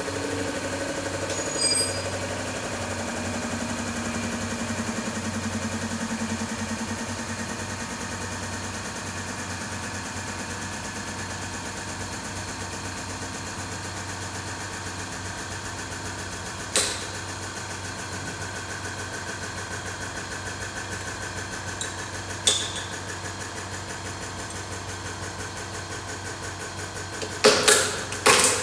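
Hydraulic press's pump motor running steadily while the ram presses down on a Russian steel military helmet. Sharp cracks from the helmet under the load come about two-thirds of the way through, another a few seconds later, and several in quick succession near the end.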